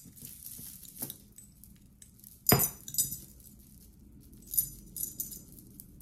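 Costume-jewelry necklace beads and metal pendants clinking and jangling as they are handled, a few separate clinks, the loudest about two and a half seconds in with a short ringing.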